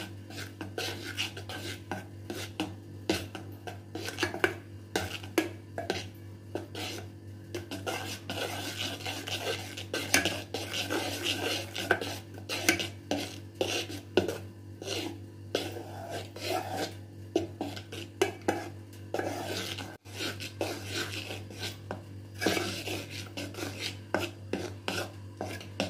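A metal spoon stirring and scraping thick cake batter in a metal bowl, with frequent irregular clinks and scrapes against the bowl. A steady low hum runs underneath.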